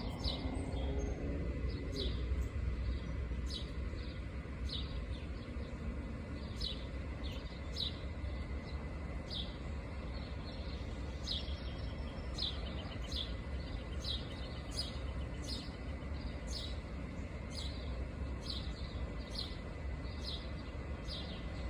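A bird chirping over and over, short high downward-sliding notes about once a second, over a steady low background rumble.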